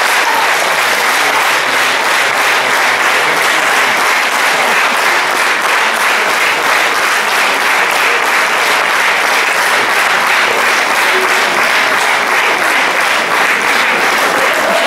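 Audience applauding steadily: a dense, even clapping from a hall full of people.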